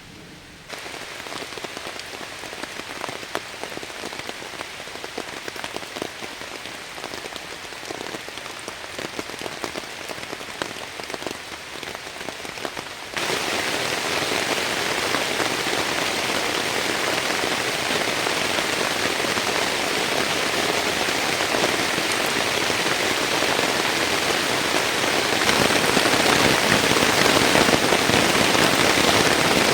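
Heavy rain falling, with individual drops distinctly pattering at first. About thirteen seconds in it abruptly becomes louder and denser, and it steps up again near the end.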